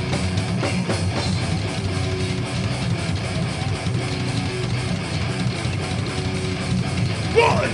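Live heavy metal band playing: distorted electric guitars and bass over drums in a dense, unbroken wall of sound. A shouted vocal comes in near the end.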